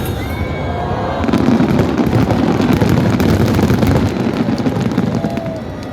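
Fireworks going off in a dense barrage: many rapid pops and crackles over a continuous rumble. The barrage is heaviest from about a second in until shortly before the end.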